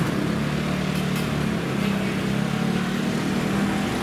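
A motor vehicle engine running steadily under a constant wash of street noise.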